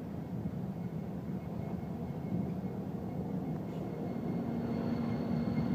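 A coal train's open hopper cars rolling past, followed by a BNSF EMD SD70ACe diesel locomotive whose engine hum comes in about four seconds in as it draws alongside. Wind buffets the microphone throughout, adding a heavy rumble.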